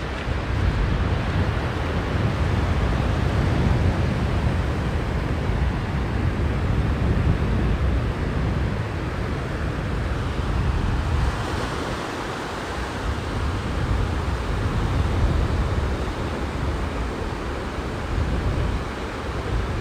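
Sea surf washing onto the beach, one wave surging up about halfway through, with wind buffeting the microphone as a low rumble.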